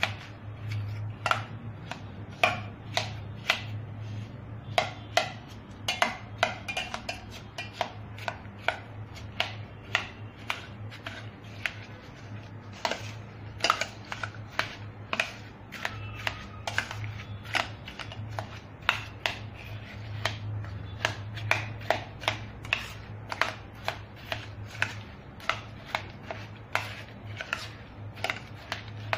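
A metal spoon beating a thick, chilled ice-cream mixture of kiwi and cream in a stainless-steel bowl, clicking against the bowl about twice a second. A steady low hum runs underneath.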